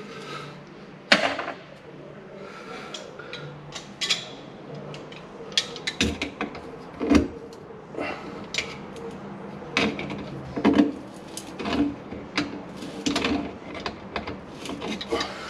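Pliers gripping and working on the brass slip-joint nuts of an old brass two-part waste and trap to loosen them, giving a string of short metal clicks, clanks and knocks. The loudest is a sharp clack about a second in.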